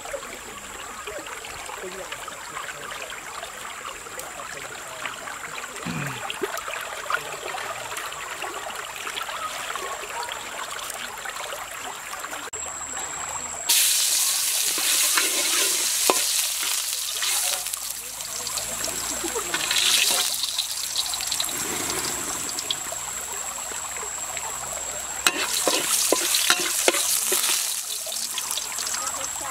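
Steady rush of a shallow stream. About halfway through, chopped garlic is tipped into hot oil in a wok and starts sizzling suddenly and loudly, and it keeps frying with a few scrapes of stirring near the end.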